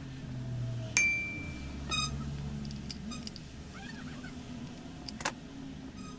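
Metal tools and small chainsaw parts handled on a workbench: one sharp metallic clink about a second in that rings briefly, a rattling knock near two seconds, and a short click near the end, over a low steady hum.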